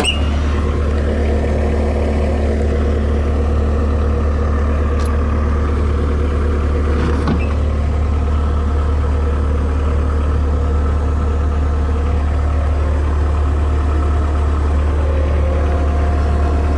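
Cat 257B compact track loader's diesel engine running steadily at idle, heard from inside the operator's cab, with a deep, even hum.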